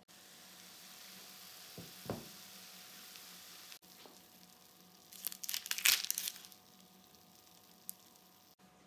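Food sizzling in a frying pan, a steady hiss with a knock about two seconds in. After a cut, a short burst of crackling and crinkling.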